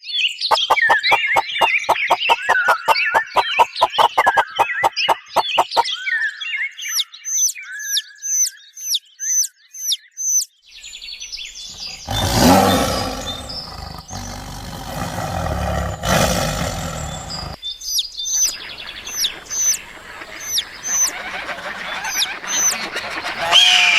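Birds chirping and calling in several passages: a fast run of short calls, then repeated high chirps. A louder, noisier stretch sits in the middle.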